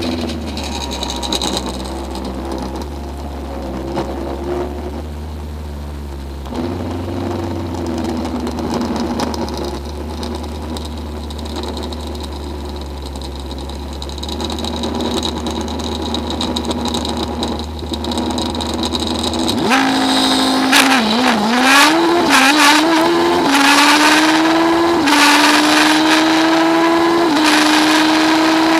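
Drag motorcycle engine idling steadily for about twenty seconds. It is then revved, launched hard and accelerated, its pitch climbing with a drop at each upshift.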